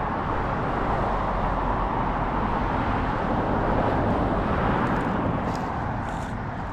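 Road traffic: a passing vehicle's tyre and engine noise that builds to a peak about four seconds in and then fades.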